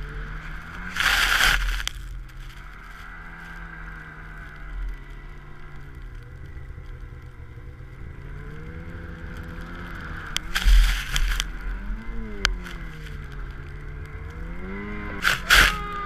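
Snow vehicle's engine running as it ploughs through deep powder, its pitch rising and falling with the throttle. Short bursts of rushing noise come about a second in, around ten to eleven seconds in, and twice near the end.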